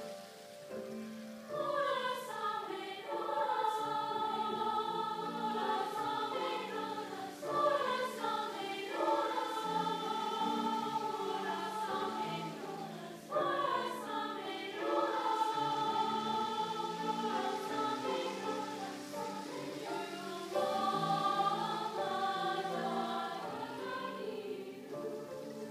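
A large school choir singing with grand piano accompaniment, in phrases that swell after a soft opening about a second and a half in.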